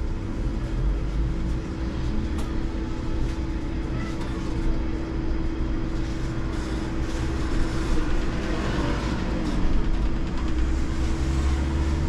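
Hess Lightram 19 DC trolleybus driving along a city street, heard from the driver's cab: a steady electric hum over tyre and road rumble.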